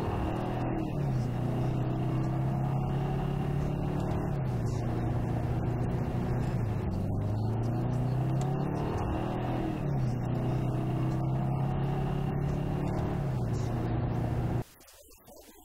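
Car engine running steadily, its pitch dipping and climbing back several times. It cuts off suddenly about a second before the end.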